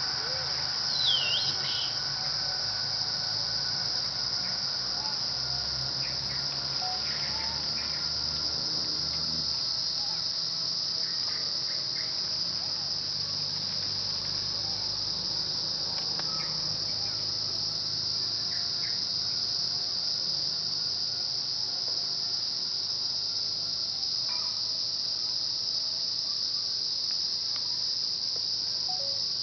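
Steady high-pitched insect chorus droning without a break. About a second in, a short sharp chirp rises and falls over it, with fainter scattered chirps later.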